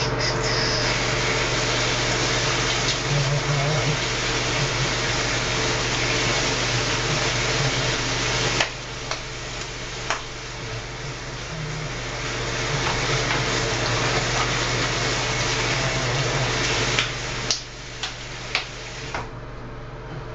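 Bathroom faucet running into the sink while hands are washed under it, the water sound dipping partway through. Near the end there are a few sharp clicks and the running water stops.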